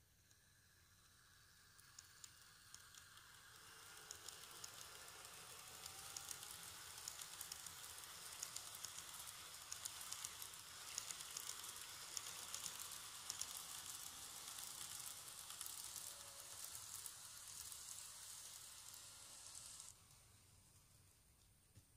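Model train running on track as it pulls out of a station: a hissing rattle of small wheels with many fine clicks over rail joints and points, and a faint rising motor whine. It swells gradually as the train picks up speed and stops abruptly near the end.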